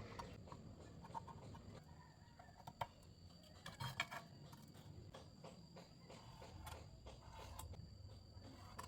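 Faint scattered light clicks and taps, with a couple of sharper knocks near the middle, over a faint steady hum and a thin high whine.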